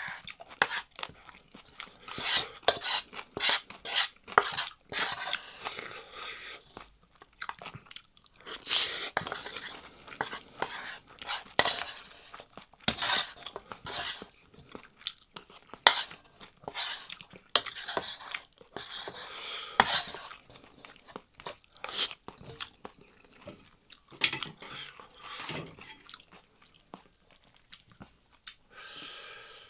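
Close-up eating of Chapagetti noodles and green onion kimchi: irregular chewing and crunching, with sharp clicks of utensils against the dishes.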